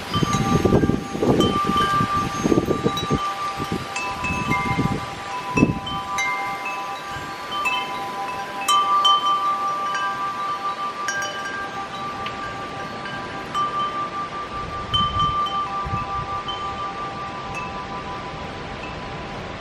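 Wind chimes ringing in gusty wind, several tones struck over and over and ringing on, some notes higher and shorter. Wind gusts buffet the microphone through the first six seconds and again about fifteen seconds in.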